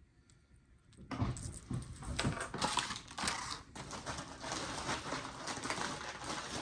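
Plastic packaging crinkling and rustling with many small clicks as a package is handled and opened, starting about a second in.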